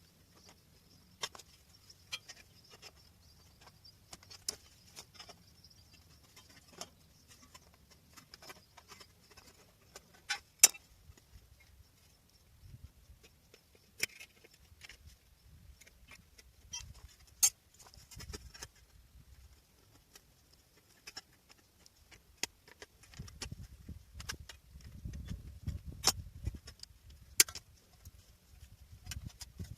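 Irregular sharp clicks and taps of hand-tool work, a few loud ones among many light ones, with low rustling handling noise in the last several seconds.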